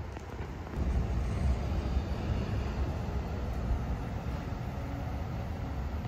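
Street traffic: a motor vehicle's low rumble that swells about a second in and stays steady.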